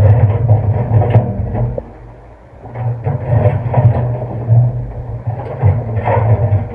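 Excavator diesel engine working under load, with scattered knocks and clatter. The engine eases off briefly about two seconds in, then picks up again.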